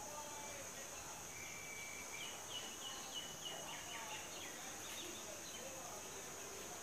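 Steady high-pitched insect drone, with a small bird giving a brief whistle and then a quick run of short chirps between about one and a half and three and a half seconds in.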